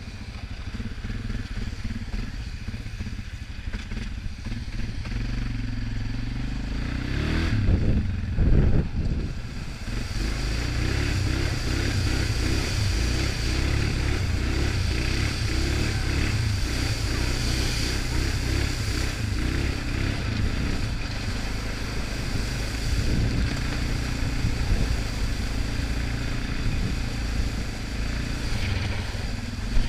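Suzuki KingQuad ATV engine running steadily under way, with a few loud knocks and jolts about eight seconds in. After that the engine pulls harder and water hisses and splashes as the quad drives through standing water.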